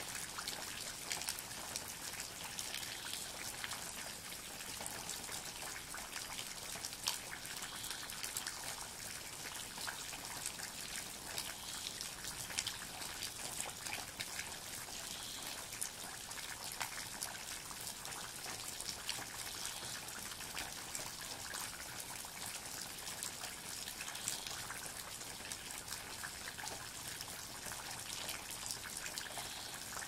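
Steady rain falling on trees and wet ground, an even hiss dotted with many small, close drop ticks.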